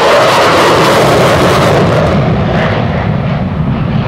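F-16 Fighting Falcon jet engine at high power as the fighter passes. The roar is loudest in the first two seconds, then its high hiss thins out and it eases off slightly as the jet pulls away.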